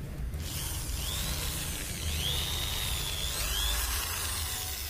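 Kairos KA-810-RE corded electric drill switched on a moment in and running freely with no load, a steady high motor whine whose pitch dips and rises a few times.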